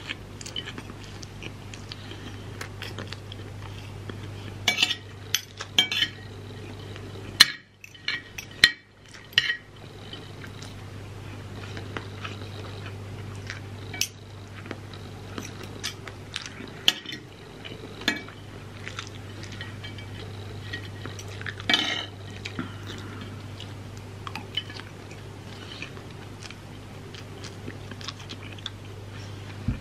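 Metal fork and spoon clinking and scraping on ceramic plates while noodles and rice are served and eaten. Sharp clinks come in clusters, the loudest about five to six seconds in, around eight to nine seconds and near twenty-two seconds, over a steady low hum.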